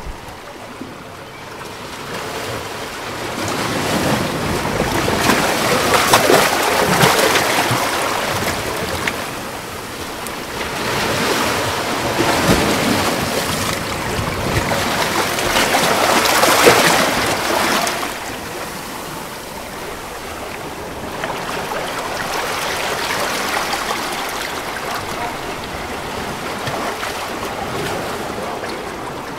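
Sea waves surging onto a rocky shore, swelling and falling back in slow surges several seconds apart.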